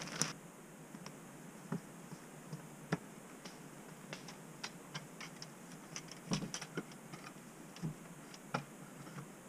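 Faint, irregular light clicks and small knocks, a few seconds apart, with a short cluster about six seconds in.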